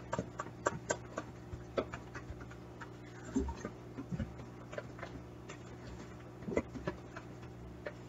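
Fork clinking and scraping against a bowl while stirring instant mashed potato flakes into hot water: irregular light ticks, a few a second.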